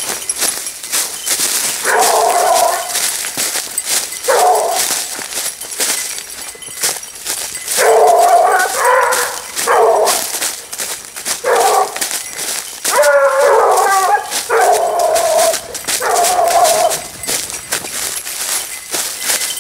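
Basset Bleu de Gascogne hounds giving tongue on a hare's scent: about eight drawn-out bays and yelps, unevenly spaced. Throughout there is a steady crackle of twigs and undergrowth.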